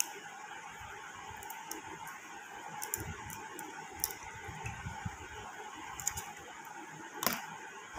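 Faint taps and clicks of an egg being cracked against a glass bowl and its contents dropping in, with a sharper click near the end.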